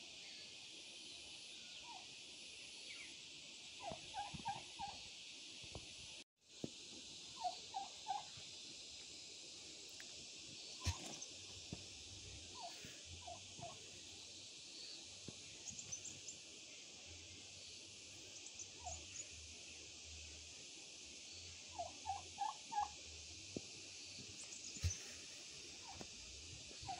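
Domestic turkey calling in short runs of quick 'kor kor kor' notes, a cluster every few seconds, over a steady high hiss. The sound briefly drops out about six seconds in.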